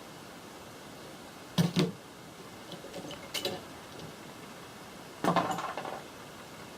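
Metal parts clinking and knocking against a hard surface as they are handled: two sharp knocks, a few light clicks, then a short rattling clatter.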